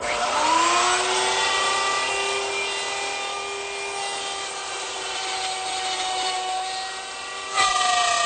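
A router with a 3/8-inch straight bit switched on, its motor spinning up with a rising whine and then running steady at speed. Near the end it turns suddenly louder and the whine drops in pitch as the bit cuts into the wood of the leg for the mortise.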